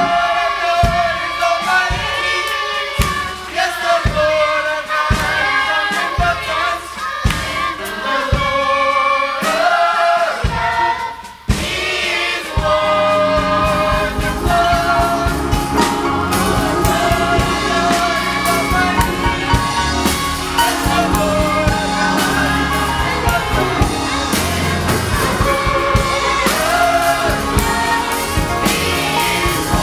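Children's and youth choir singing a gospel song with instrumental accompaniment. The sound drops out briefly about eleven seconds in, then comes back fuller with a heavier bass.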